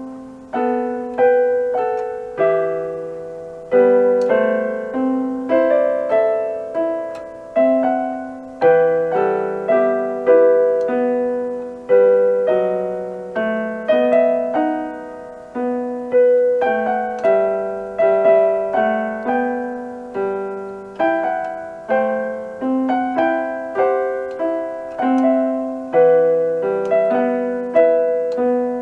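Electronic keyboard in a piano voice, played by a beginner: a slow melody over chords, each note struck and then fading.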